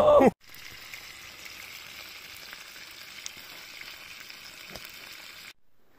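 Pieces of pike frying in a pan over a campfire: a steady sizzle with a couple of faint crackles, cutting off about five and a half seconds in. A man's excited shout ends right at the start.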